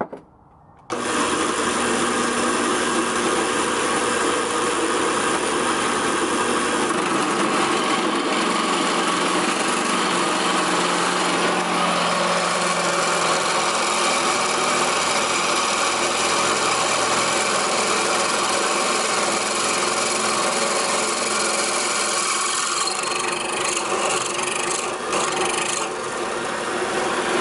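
Drill press driven by a treadmill motor, drilling a 7/16-inch hole through quarter-inch steel: a steady motor whine with the rasp of the bit cutting. It starts about a second in and stops near the end.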